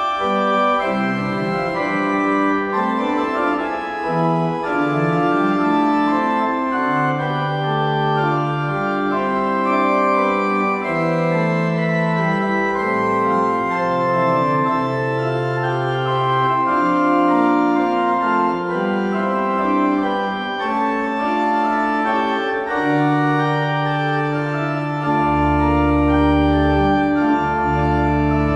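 Church organ played on two manuals: sustained chords with moving inner lines, and deep bass notes coming in about three-quarters of the way through.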